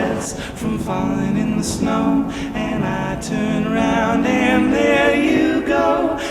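Background music: a song sung by several voices in harmony.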